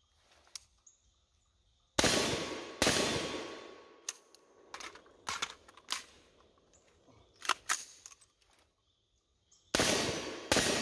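Two rifle shots from a Troy AR-15-style rifle in 5.56/.223, each trailing off in a long echo, then a string of smaller clicks and clacks as a magazine is pulled and a fresh one seated, then two more shots near the end.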